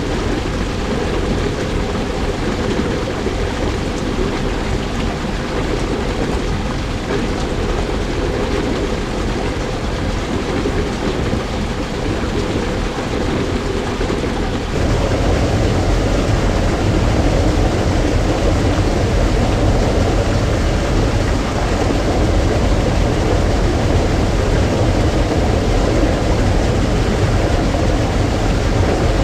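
Steady rushing and splashing water with a low rumble from a large aquarium sump filter system. About halfway through it changes abruptly to a louder, deeper rush.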